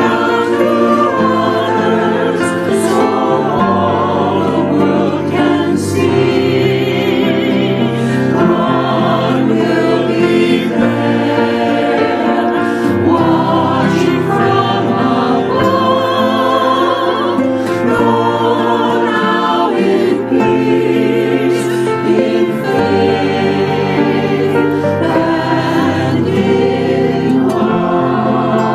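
Choir singing a hymn, with held notes and vibrato in the voices.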